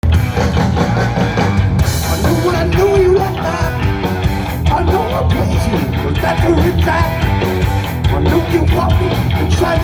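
Loud rock band playing heavy rock, a passage before the vocals come in.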